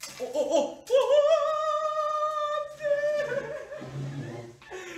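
A voice singing one long, high held note that wavers toward its end, dubbed in as an edited-in sound effect, with a short vocal sound just before it.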